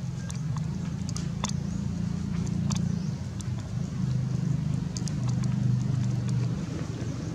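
Steady low hum of a running motor, with scattered faint clicks.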